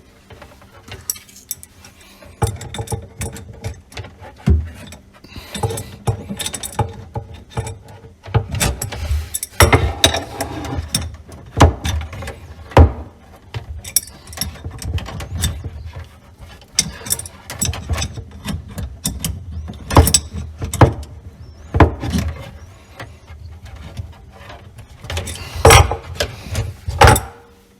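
Plastic water-filter tubing and fittings being handled and connected: irregular clicks, knocks and squeaky rubbing, with a few sharper knocks near the end.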